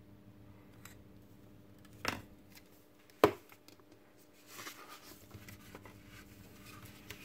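Handling sounds of plastic robot parts and a small screwdriver: a faint click, then two sharp knocks about a second apart as they are set down on the table. Then the soft rustle of a magazine page being turned.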